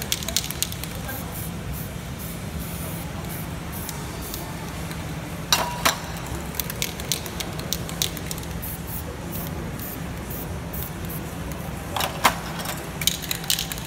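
Aerosol spray-paint cans hissing in short bursts, with three clusters of sharp clicks and clatter as the metal cans are handled. A steady low hum runs underneath.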